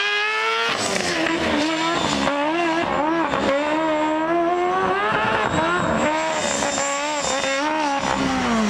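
Formula SAE race car engine revving up and falling back again and again. The pitch climbs on each acceleration and drops as the car slows.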